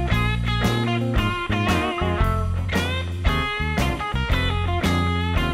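Intro music: a guitar-led rock track with plucked electric guitar notes over a steady bass line.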